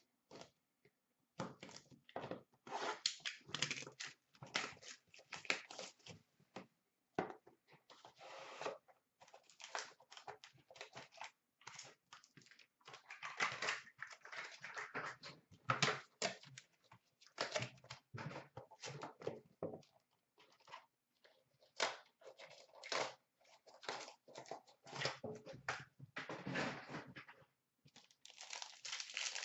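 Hands opening a sealed hockey card box and its foil card pack: cardboard and foil wrapper pulled and torn open, in irregular bursts of tearing and crinkling with short pauses.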